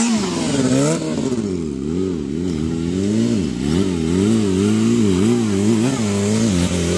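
Sport motorcycle engine revving up and down in quick throttle pulses, rising and falling about every half second, as the rider works the throttle to hold the bike up on its back wheel in a wheelie.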